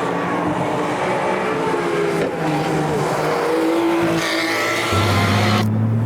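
Race cars passing at speed, their engines revving up and down with the pitch sliding as they go by. The sound changes abruptly twice near the end.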